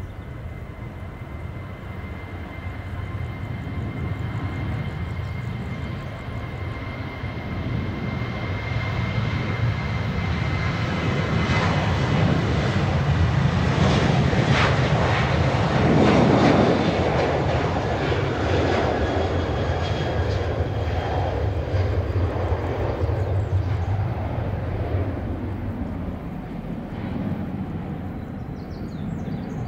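Jet engines of a Boeing 767-300 freighter on final approach: a steady high whine over a low rumble. The sound grows louder to a peak about halfway through, then eases off.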